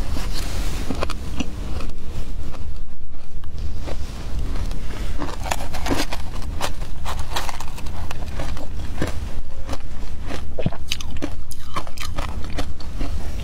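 Shaved ice with milk powder being bitten and chewed close to the microphone: many sharp, crisp crunches in quick irregular runs, over a steady low rumble.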